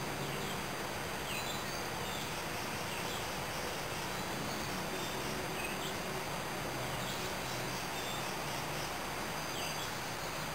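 Steady background hiss with a few short bird chirps scattered through it and faint steady high insect-like tones.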